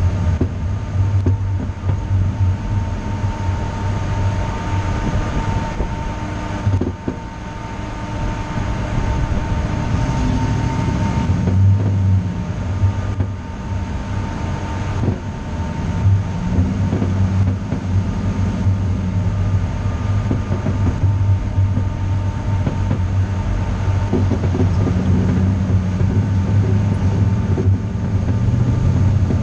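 Engine of the camera's vehicle running with a steady low drone under road and wind noise while driving in traffic. The engine note rises and falls a few times with speed.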